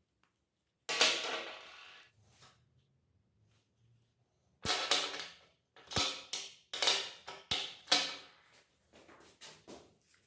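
Sharp metallic clanks of steel parts struck or knocked together, each ringing briefly. One ringing clank about a second in, then a quick run of about six more, and a few lighter knocks near the end.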